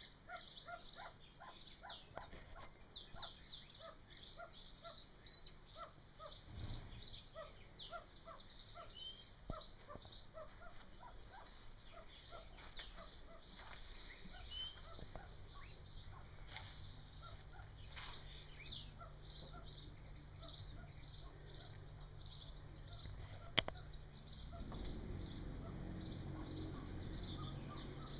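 Golden pheasant chicks peeping: a long run of short, high peeps repeated several times a second, with lower short calls among them. A steady low rumble comes in near the end.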